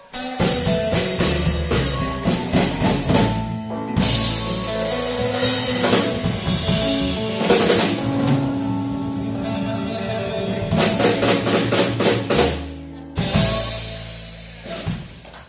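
Live blues band of electric guitars, upright bass and drum kit playing the instrumental closing bars of a song. A run of accented hits comes about eleven seconds in, then a last loud chord rings and fades.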